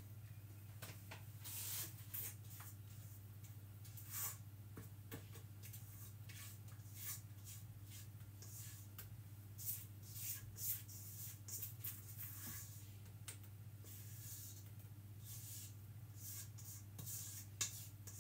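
Spatula scraping and rubbing cake batter out of a stainless steel mixing bowl into a cake tin, in scattered short, soft scrapes over a steady low hum.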